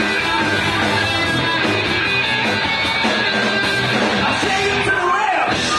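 Live rock band playing: electric guitars over drums, with a pitch swooping up and back down near the end.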